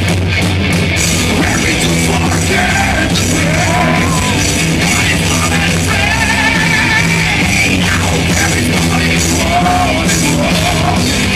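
Live rock band playing loud: distorted electric guitar, bass and drums, with a male singer's wavering vocal line over the top.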